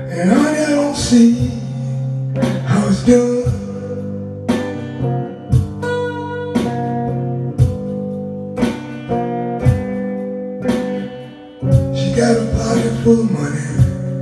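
Electric guitar playing a slow blues, picked notes falling about once a second over a held bass note. A man's singing voice comes in near the start and again near the end.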